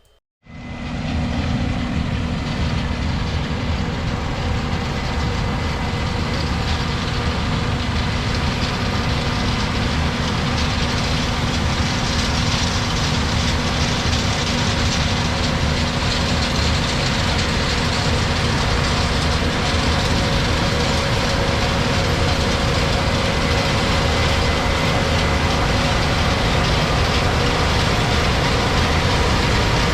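Case IH 8250 combine harvester running steadily: a constant heavy engine and machinery drone with a few steady whining tones. It comes in abruptly about half a second in.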